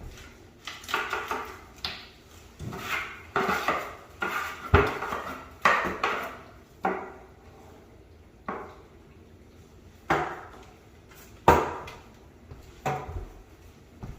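Irregular clattering knocks and short scrapes of hard objects being handled, about a dozen in all. The sharpest knocks come about five seconds in and again about eleven and a half seconds in.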